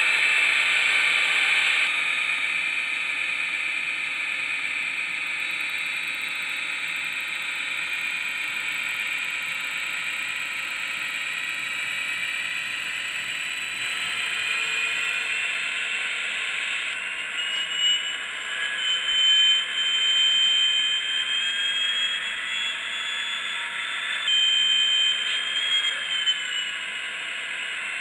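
Model diesel locomotive's sound decoder playing a diesel prime mover running through its small onboard speaker. A string of horn blasts comes in past the halfway point, one of them held longer.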